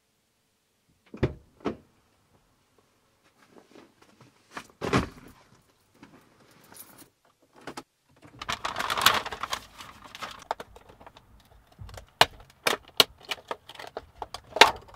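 Car interior sounds: a couple of thumps as someone gets in and the door shuts, then keys jangling at the ignition. About eight seconds in the engine starts with a rush of noise and settles to a low idle. Several sharp clicks follow near the end.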